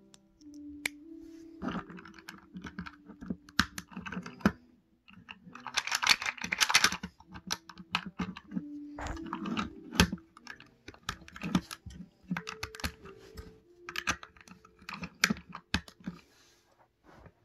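Plastic LEGO bricks clicking and rattling as they are handled, pressed together and pulled apart, in irregular bursts with a dense rattle about six seconds in.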